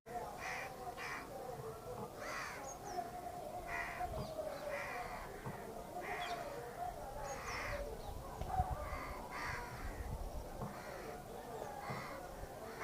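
Several crows cawing over one another in short, harsh calls, about one or two a second.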